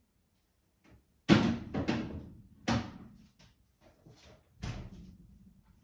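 Kitchen clatter of things being handled and put away: four sharp knocks and clunks, the loudest about a second in, each dying away quickly.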